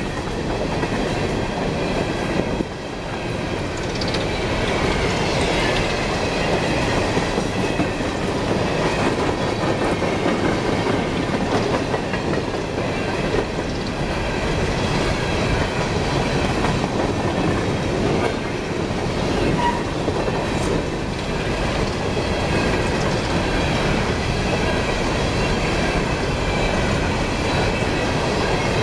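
A train of empty CSX coal hopper cars rolling steadily past, its steel wheels clattering over the rail joints.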